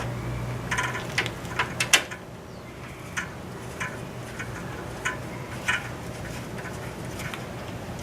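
Irregular light clicks and taps of a hand tool working a stubborn fastener on a car's front end, with a low hum that stops about two seconds in.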